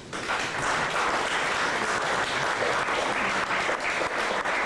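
A room of people applauding at the end of a talk: dense, steady clapping that starts suddenly and holds level.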